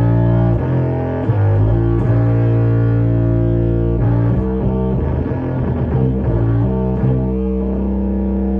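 Bass guitar played through a Death By Audio Crossover Fuzz pedal: held, fuzz-distorted low notes that change pitch every second or so.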